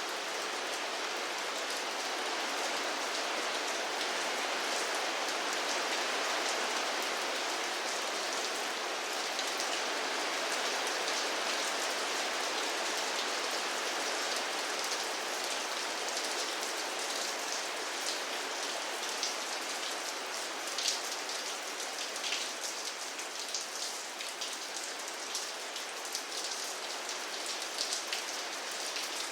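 Steady rain falling, a dense even hiss with many sharp individual drop impacts ticking through it, the separate drops more distinct in the second half.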